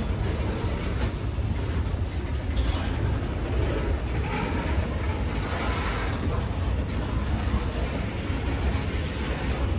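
Train rolling past with a steady low rumble of railcars on the track.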